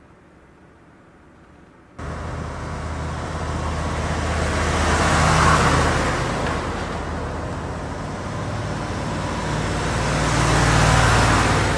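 Heavy military trucks driving past close by: diesel engines and tyres on asphalt. Faint at first, then suddenly loud about two seconds in, swelling as one truck with a trailer goes by in the middle and again as another passes near the end.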